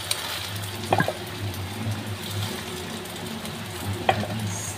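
Cooked rice being scraped out of a pot into a frying pan with a wooden spatula, with two short knocks of the spatula against the pot, about a second in and near the end. A steady low hum and a faint hiss run underneath.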